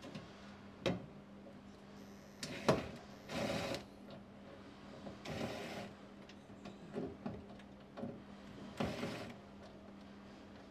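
Makita cordless driver run in several short bursts, each under a second, turning a levelling screw on a pull-out drawer basket, with a few sharp clicks of the bit and the metal fittings between bursts. The screw is hard to turn, so the driver is worked in short spurts.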